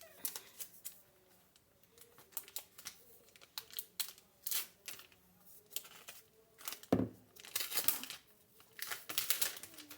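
Packaging being unwrapped: crinkling and tearing in many short crackles, denser toward the end, with one knock about seven seconds in.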